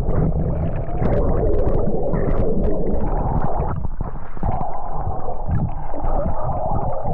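Strong wind buffeting the microphone in a continuous low rumble, with scattered short splashes of water from the kayak paddling through waves.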